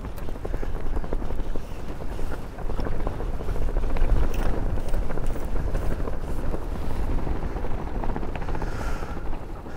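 Wind buffeting the microphone in a steady low rumble, over choppy waves splashing against the side of a small drifting boat.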